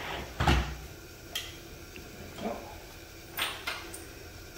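ROV buoyancy float set down onto the vehicle frame with a heavy thump, followed by a few light clicks and knocks as it is handled and seated.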